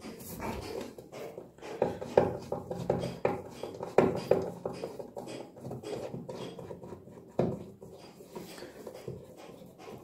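A Phillips screwdriver unscrewing the centre screw of a washing machine's plastic pulsator: irregular clicks and creaks of the tip in the screw head and small knocks against the plastic, loudest about two and four seconds in.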